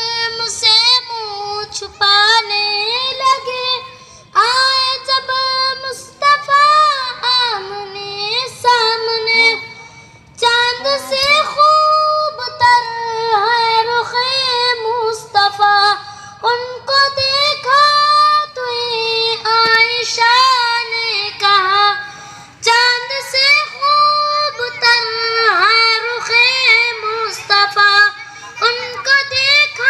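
A boy singing a naat solo and unaccompanied into a microphone: a high child's voice in long, ornamented, wavering lines with short breaks for breath between phrases.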